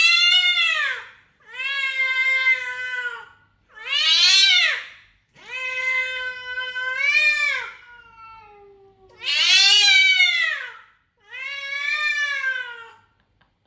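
A long-haired cat meowing loudly: six long, drawn-out meows about every two seconds, each rising and then falling in pitch.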